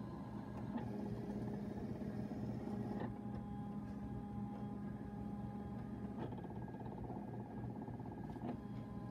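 Silhouette Cameo electronic cutting machine cutting out a printed card with its ratchet blade. Its motors whir steadily as the mat and tool carriage move, and the pitch shifts with each change of direction, about 1, 3, 6 and 8½ seconds in.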